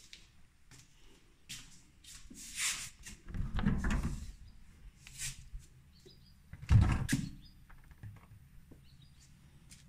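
A door being opened and closed, with rustling and handling noise and a heavy thump about seven seconds in.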